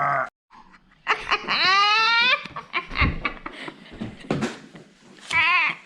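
Laughter right after a burp: the tail of a long burp ends at the start, then a high laugh rising in pitch about a second in, short choppy laughing sounds, and a wavering laugh near the end.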